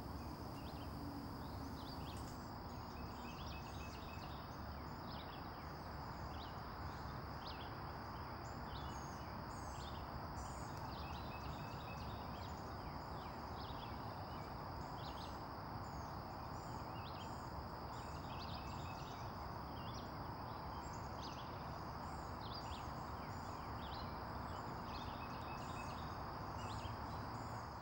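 Wetland ambience: a steady high insect drone with frequent short bird chirps and calls scattered over it, above a faint low rumble.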